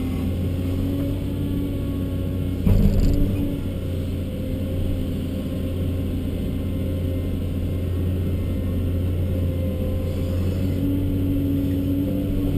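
Cat 324D long-reach excavator's six-cylinder diesel engine running steadily under working load, heard inside the cab, with a higher hydraulic tone coming in near the start and again near the end. A single sharp knock sounds about three seconds in.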